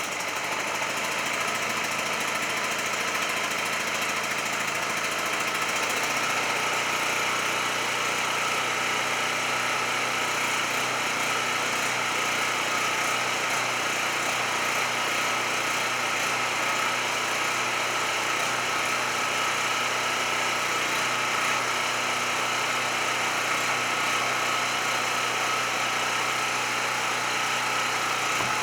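Champion 4000-series portable generator engine running steadily at close range, an even, unbroken engine drone.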